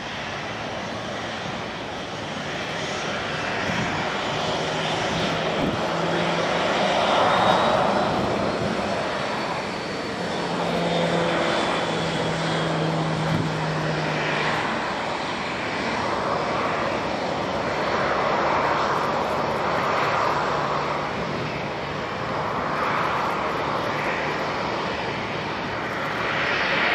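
Boeing 747-400F's four turbofan engines at takeoff thrust during the takeoff roll, heard from a distance as a steady jet roar that swells and fades slightly. It grows louder near the end as the aircraft rotates and lifts off.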